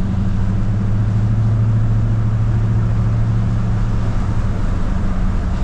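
LS V8 in a GMC Squarebody pickup running steadily under way, heard from inside the cab as a low, even drone. All eight cylinders are firing now that the loose ground wire on the cylinder head has been tightened.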